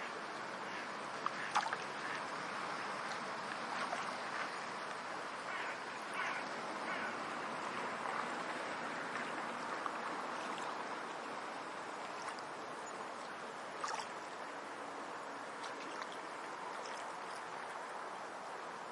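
Steady rush of flowing water, like a forest stream, with a few brief sharp sounds standing out about a second and a half in and again about two-thirds of the way through.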